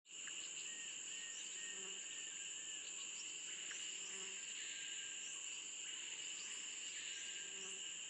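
Steady, shrill chorus of insects in two continuous high tones, cutting in suddenly. Faint low notes repeat every two to three seconds beneath it.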